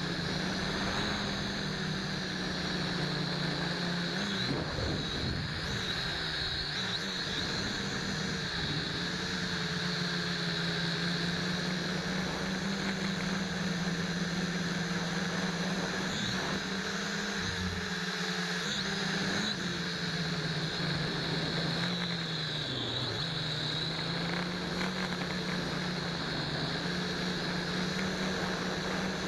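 MJX X500 quadcopter's motors and propellers buzzing steadily in flight, heard close up from the camera it carries. The pitch sags briefly several times as the throttle changes.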